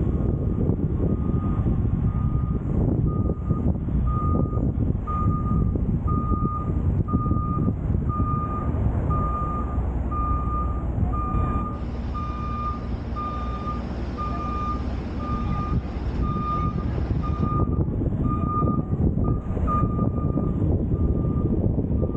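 A vehicle backup alarm beeping steadily about once a second, a single high tone that grows louder toward the middle and then fades, over the low rumble of road noise and wind. A steady hiss joins in for several seconds around the middle.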